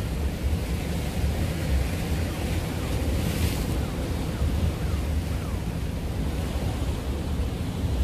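Sea surf washing against the concrete blocks of a breakwater, with wind rumbling on the microphone; a brighter rush of breaking water swells about three seconds in.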